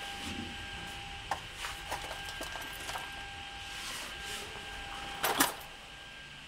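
CNC boring machine running: a steady hum with a thin high whine, scattered light clicks and ticks, and one brief loud burst about five seconds in, after which the hum is a little quieter.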